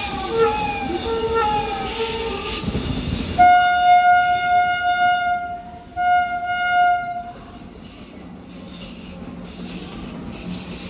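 Indian Railways WAP-7 electric locomotive's air horn, sounded in two steady blasts: a long one about three seconds in and a shorter one about six seconds in. Before the horn there is a repeating wavering tone. After it the arriving train's rumble carries on more quietly.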